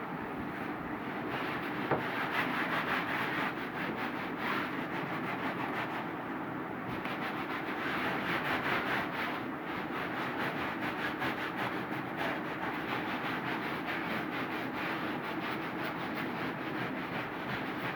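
Continuous, steady rubbing noise with a fine, fast grain, typical of work on a sofa's upholstery.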